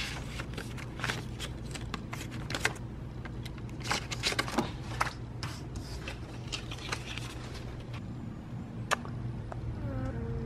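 Cardstock paint swatch cards on a display rack being leafed through by hand: a quick run of papery clicks and flicks, dense for about the first five seconds and sparser after, over a steady low background hum.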